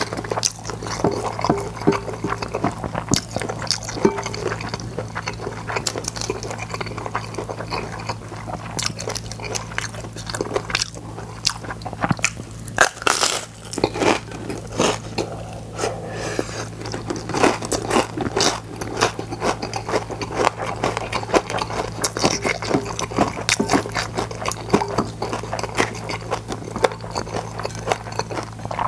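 Close-miked crunching and chewing of gim-bugak, crisp fried seaweed chips coated in glutinous-rice batter: dense crackling bites and snaps all the way through, over a steady low hum.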